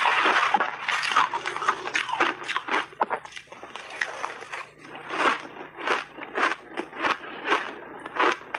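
Refrozen purple shaved ice being bitten and chewed close to the microphones: a dense run of crisp crunches at first, then a series of separate sharp crunches, about two a second, in the second half.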